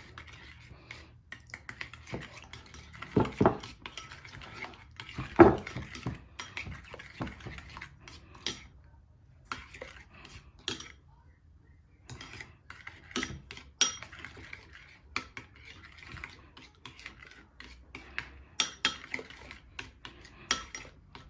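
A spoon clinking and tapping against a bowl while stirring barbecue sauce, in irregular strokes, with two louder knocks a few seconds in and a brief pause in the middle.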